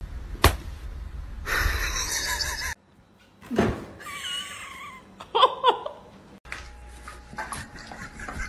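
Domestic cat meowing: a few short meows through the middle, after a sharp knock near the start.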